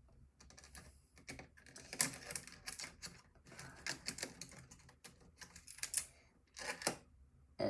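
Irregular light clicks and taps of plastic and small metal laptop parts being handled and pried during disassembly, with a couple of louder taps near the end.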